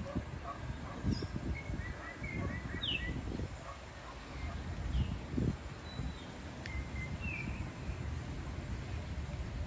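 Gusty wind buffeting the microphone in uneven low rumbles, with scattered short bird chirps and calls over it, one sliding down in pitch about three seconds in.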